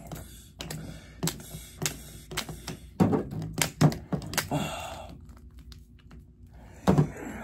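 Plastic wrestling action figures knocking and clacking together as they are worked through moves: a string of irregular sharp clicks and taps that thins out about two-thirds of the way through, with one more knock near the end.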